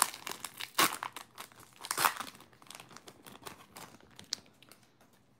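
Foil wrapper of a Pokémon card booster pack crinkling as it is torn open, in loud bursts over the first two seconds or so, then fainter rustling as the cards are handled.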